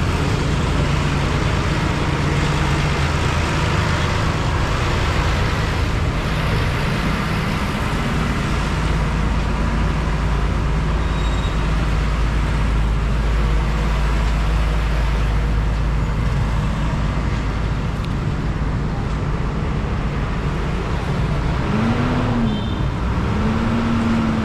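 Steady street traffic, with vehicle engines running. Near the end, one engine's pitch rises and falls twice as a vehicle speeds up and slows.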